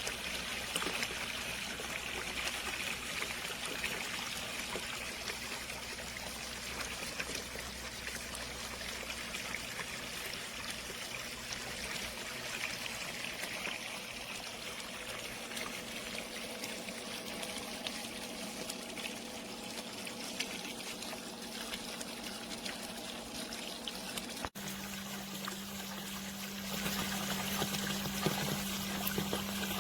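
Water trickling and splashing steadily from an Intex 56028 LED pool waterfall fountain, driven by the filter pump's flow. About 25 seconds in the sound cuts and a steady low hum joins the water.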